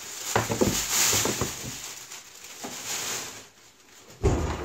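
Plastic packaging rustling and crinkling as a portable TIG welder is lifted out of it and handled, then a heavy thump a little over four seconds in as the unit is set down.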